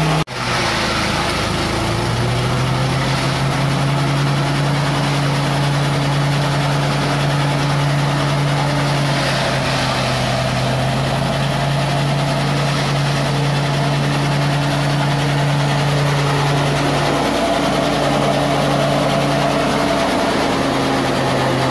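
Small petrol engine driving a forage chopper, running steadily at speed while the machine chops fodder. The engine's pitch dips briefly twice near the end.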